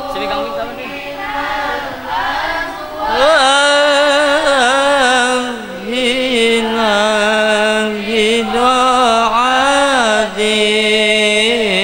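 A single voice chanting an Arabic Islamic devotional poem (sholawat) in a melismatic style, holding long notes with wavering ornaments and pitch bends; it swells louder about three seconds in.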